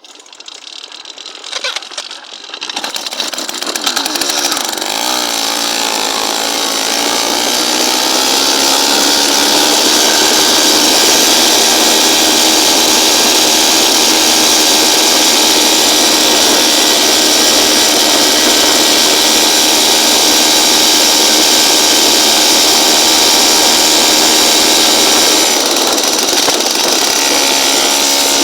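Motorized bicycle's small engine starting with uneven sputters, then revving up and running at high revs with a steady, loud, chainsaw-like buzz. The revs dip slightly near the end.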